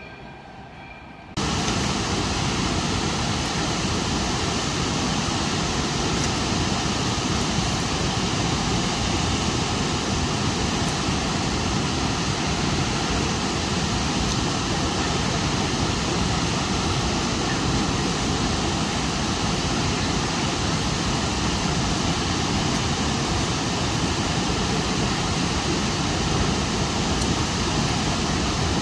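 Steady roar of a large waterfall, starting suddenly about a second in.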